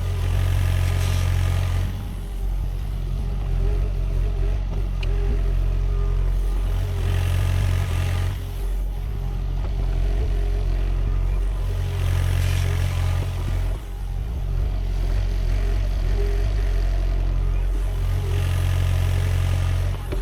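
Sany SY50U mini excavator's diesel engine running steadily, its sound swelling under hydraulic load about every five to six seconds as it works through dig-and-dump cycles.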